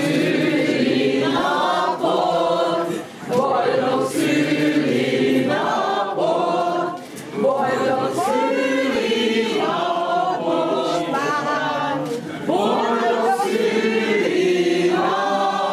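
A small group of men and women singing together, unaccompanied, in phrases with brief breaks about three and seven seconds in.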